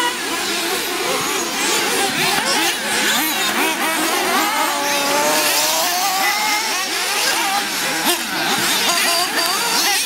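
Several 1/8-scale off-road RC buggies racing, their small nitro engines revving up and down over one another as they accelerate and brake around the dirt track.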